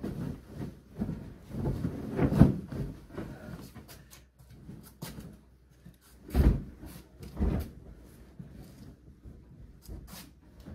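Irregular knocks and bumps of things being handled and set down, with rubbing in between. The loudest knocks come about two and a half, six and a half and seven and a half seconds in.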